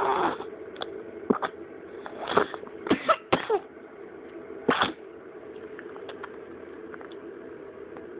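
A bout of coughing: about seven short coughs, bunched between about one and five seconds in, over a steady low hum.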